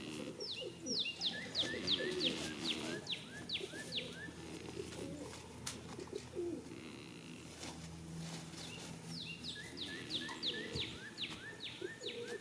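A songbird singing two phrases, each a quick run of sharply falling whistled notes, about three a second for some three seconds; the second phrase comes about five seconds after the first ends.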